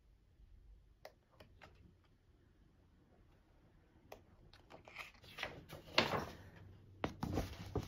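Paper handling: glossy photobook pages being turned, a few light clicks at first, then busier rustling and flapping from about halfway, with a knock as the book is laid down on the table.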